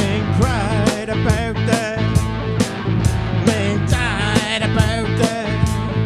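Live blues band playing with electric guitar, electric bass and drums keeping a steady beat, and a wavering lead line from the frontman at the microphone over them.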